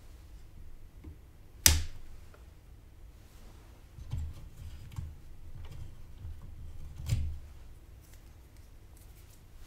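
Sharp clicks and light knocks from handling a motherboard on the workbench: one loud click a little under two seconds in, lighter knocks a couple of seconds later, and a second sharp click about seven seconds in.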